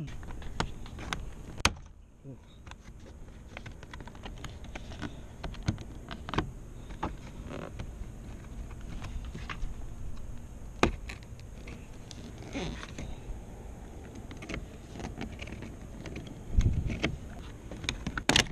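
Hard plastic interior door trim on a Nissan Murano's driver door being handled and pried loose: scattered small clicks and snaps throughout, with a heavier knock and a sharp snap near the end.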